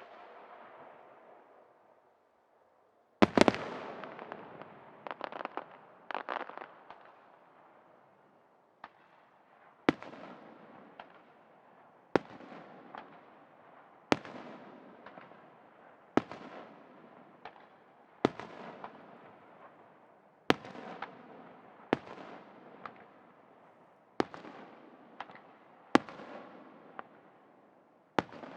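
Aerial firework shells bursting. A loud bang about three seconds in is followed by a rapid cluster of pops, then single bangs come about every two seconds. Each bang trails off in a rolling echo.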